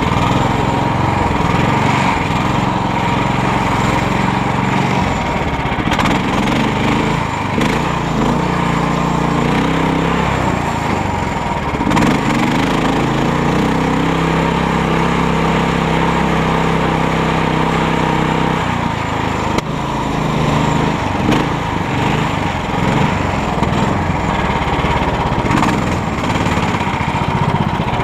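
Karakat swamp buggy's engine running under way, its pitch shifting up and down as engine speed changes.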